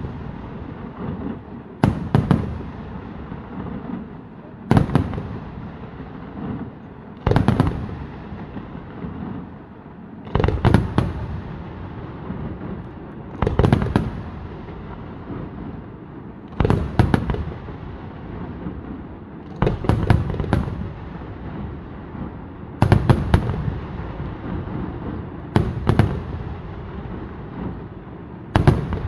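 Vaccalluzzo aerial firework shells bursting in a night display, one heavy bang about every three seconds, a few of them doubled, over a continuous background of smaller bursts from the display.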